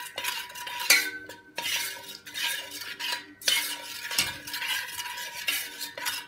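Spoon stirring melting chocolate and milk in a stainless steel saucepan, in repeated scraping strokes with clinks and a metallic ring against the pot.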